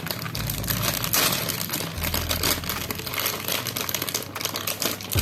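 Toy-set packaging crinkling and rustling as it is handled and opened, an irregular crackle of many small rustles.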